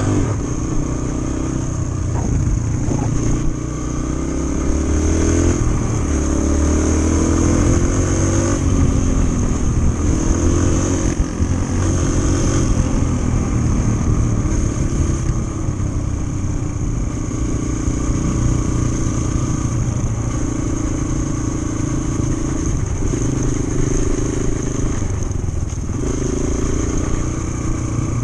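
Yamaha TT-R125 trail bike's single-cylinder four-stroke engine running under way. Its pitch climbs and drops with the throttle and gear changes in the first half, then runs steadier with a few brief dips.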